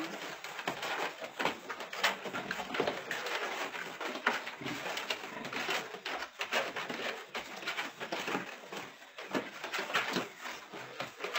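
Sow and piglets moving about on loose wooden boards in a pen, making a busy run of short irregular scuffs and clicks.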